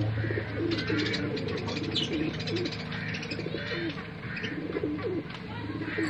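Budgerigars chirping and chattering in quick high warbled notes, over a run of short low cooing notes that repeat every half second or so.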